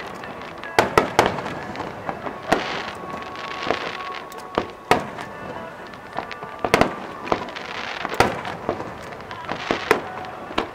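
Aerial firework shells bursting one after another: about a dozen sharp bangs at uneven intervals, some in quick pairs, with hissing crackle from the burning stars between them.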